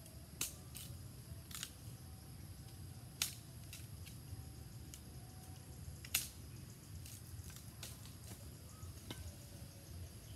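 Machete chopping brush: about ten sharp chops at uneven intervals, two much louder than the rest.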